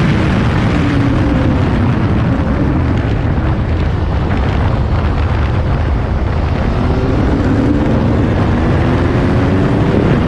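Triumph Street Triple's three-cylinder engine heard under heavy wind rush, on track. The engine note falls as the bike slows into a corner, then climbs steadily as it accelerates out over the last few seconds.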